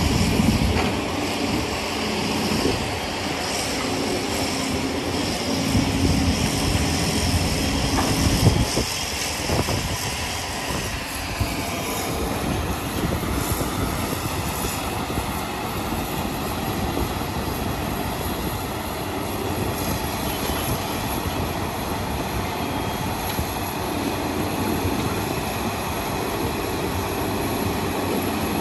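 Diesel engines of excavators and dump trucks running steadily at work, with one sharp knock a little after eight seconds in.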